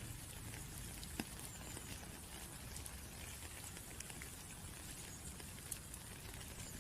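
Steady rain with scattered individual raindrops ticking on a surface; one sharper drop lands about a second in.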